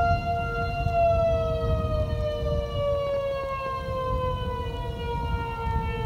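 Outdoor tornado warning siren wailing: its tone holds for about a second, then slides slowly downward as it winds down, over a second steady, lower siren tone and a low rumble.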